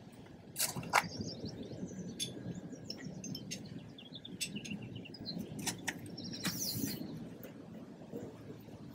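Steel roof-rack bolts and lock nuts clicking and clinking as they are handled and fitted to a latch, with two sharp clicks about half a second and a second in and more near the middle. Birds chirp in the background.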